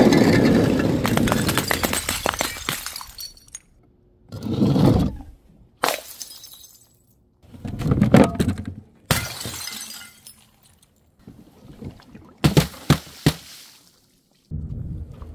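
Glass bottles smashing one after another: a big shatter at the start with fragments tinkling for about three seconds, then several more separate breaks and crunches. A cluster of sharp cracks comes near the end.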